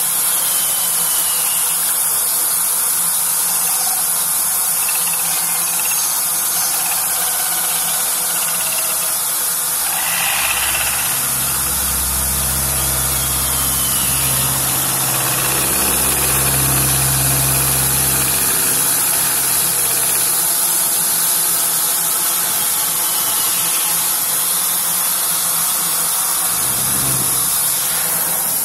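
Artikon DG604 CNC router running: a steady mechanical hiss and whine. A deeper low hum comes in about ten seconds in and fades out again around nineteen seconds.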